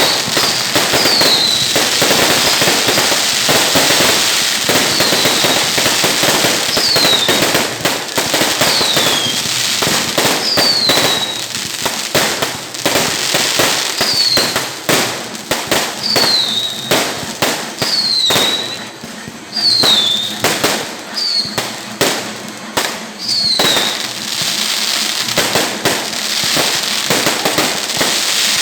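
Fireworks going off in a dense, continuous barrage of firecracker bangs and crackles. The bangs grow more spaced out about halfway through. Short falling whistles come every second or two, stopping near the end.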